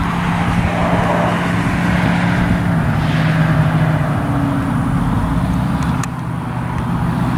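A steady low engine drone under a haze of outdoor noise. Its pitch steps down slightly about three seconds in and again about four seconds in.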